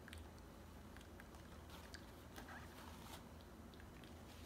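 Near silence with faint, scattered clicks of jelly beans being chewed.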